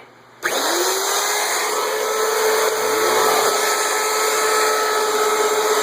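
A CNC router's spindle motor is switched on about half a second in and spins up to a steady high-pitched whine with a hiss. A couple of seconds later the vacuum for the dust hood starts, its motor rising in pitch under the router's noise.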